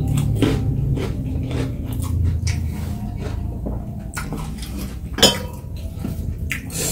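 Close-up eating sounds: chewing with scattered clicks and clinks of utensils or fingers against a plate, the sharpest about five seconds in.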